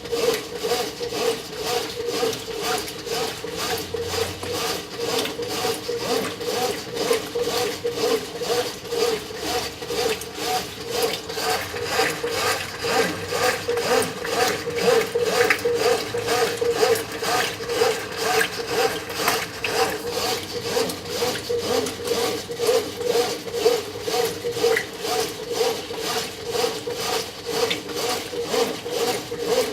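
Brastemp 9 kg top-loading washing machine agitating a full tub of water and laundry on the high water level: a steady motor hum with churning pulses in a quick, even rhythm.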